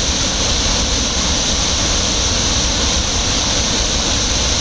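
Muddy floodwater rushing in a torrent over rocks: a loud, steady roar of churning water.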